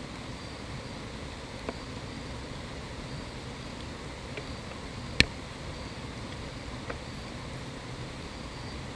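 Steady outdoor background hiss with faint insects repeating a high chirp about once a second. A single sharp click stands out about five seconds in, with two fainter clicks before and after it.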